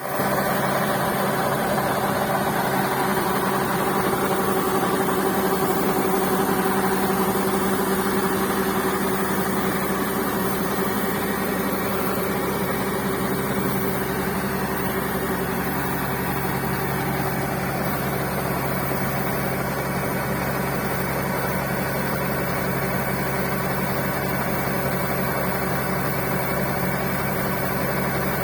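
Yanmar combine harvester's diesel engine running steadily under working load while harvesting rice, with a constant mechanical drone and clatter; its tone shifts slightly about halfway through.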